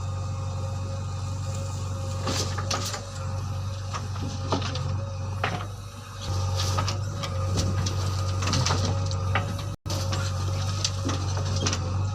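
JCB 3DX backhoe loader's diesel engine running steadily with a constant whine over it. Scattered knocks and clanks come from the machine as it works, and the engine eases off briefly about six seconds in.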